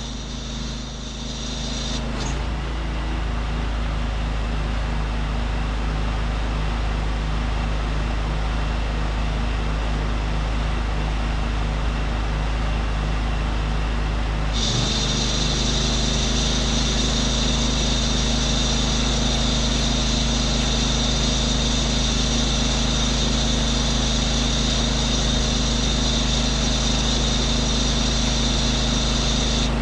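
Pressure-washer rig's engine and pump running steadily. A high hiss stops about two seconds in and comes back about halfway through, and the engine note shifts each time.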